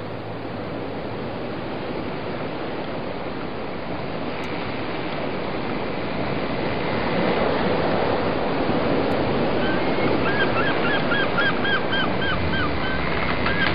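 Wind and water rushing past a moving boat, a steady noise that grows louder about halfway through. Near the end a rapid series of short, repeated calls, about three a second, joins it.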